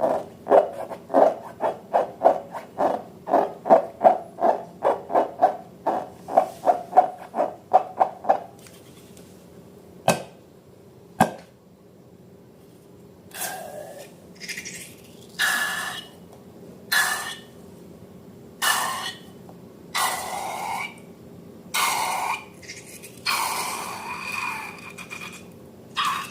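Slime-making handling noises: about eight seconds of quick taps or stirring strokes against a container, roughly three a second, then two single clicks, then a run of short scraping or squishing bursts about every second and a half.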